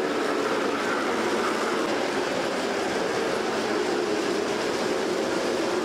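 G-scale model train rolling along its track: a steady sound of wheels running on the rails.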